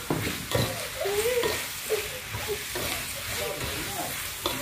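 Spatula stirring and scraping pork belly and salted radish around a wok, with the food sizzling as it fries and a few sharp knocks of the spatula on the pan.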